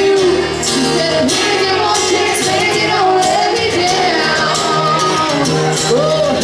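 Live acoustic country music: a steel-string acoustic guitar strummed as a woman sings the melody.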